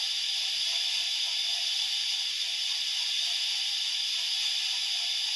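Steam locomotive sound from a LokSound 5 DCC sound decoder loaded with a Merchant Navy sound project, played through one of the small model-railway speakers on a test board. It is a steady hiss of steam with almost no bass, as a tiny speaker gives.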